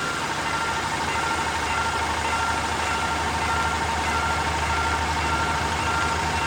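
Railway level-crossing alarm ringing in a regular repeating pattern of high tones. A steady high tone comes in just after the start and holds, and a low engine rumble runs underneath.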